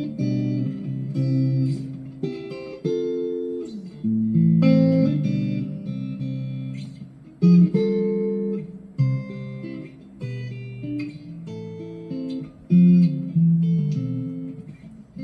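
GEARIT GST 100 Strat-copy electric guitar played on its neck pickup in a clean tone, picking a melodic passage of single notes and chords.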